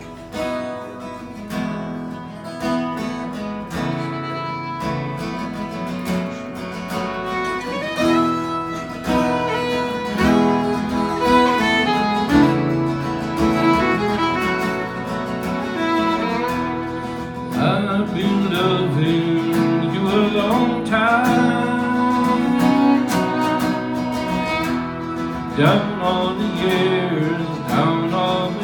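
Acoustic guitar strummed with a fiddle bowing a melody over it, played live.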